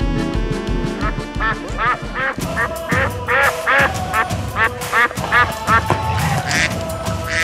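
Rubber-ducky quacks, a quick run of short calls starting about a second in and coming faster from about three seconds, over background music.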